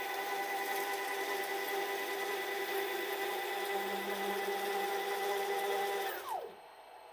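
Stepper motors driving a DIY CNC lathe's carriage along its ball screw during homing: a steady whine of several tones. A lower hum joins briefly around four seconds in, and the whine falls in pitch about six seconds in as the axis slows and stops.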